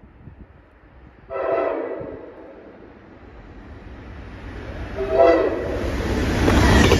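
Amtrak GE Genesis diesel locomotive's air horn sounding two blasts, about a second in and again about five seconds in, the second shorter. The rumble of the approaching train's engine and wheels builds steadily and is loudest near the end.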